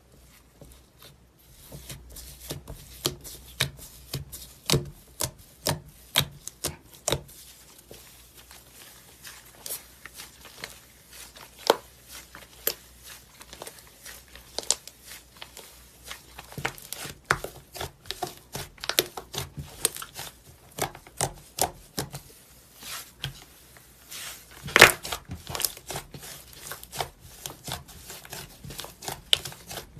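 Hands squeezing and poking a thick smoothie slime, making irregular sticky clicks and pops. One louder pop comes late on.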